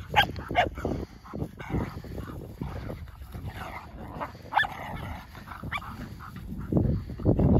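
Dogs play-fighting, giving a few short, high yips and whimpers.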